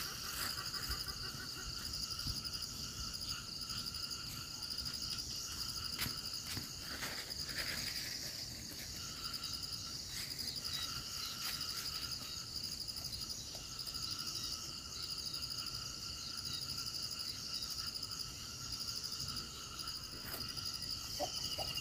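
A steady chorus of insects chirring at several pitches at once, with the buzz of the forest edge carrying on evenly throughout.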